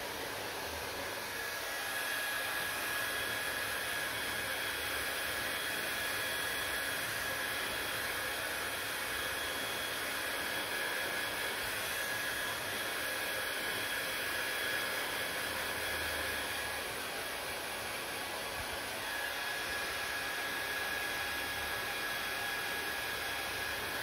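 Hand-held hair dryer running steadily, a constant rush of blown air with a faint high motor whine over it; the sound dips a little about two-thirds of the way through as the dryer is moved around the head.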